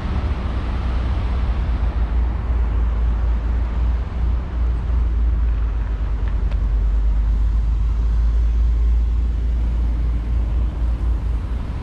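Wind buffeting the microphone: a loud, fluttering low rumble that dips briefly about four seconds in, over a faint outdoor hiss.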